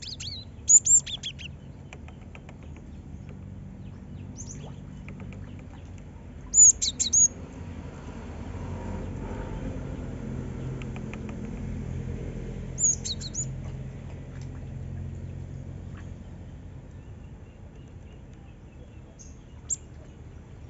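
Cinereous tit (gelatik batu) calling: short clusters of sharp, very high chirps, about six bursts with pauses of several seconds between, over a steady low background rumble.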